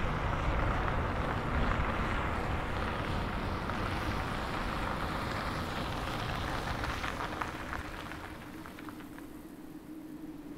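Steady low rumble of road noise inside a moving car's cabin, which fades after about seven seconds into a quieter outdoor hush with a few light crackles.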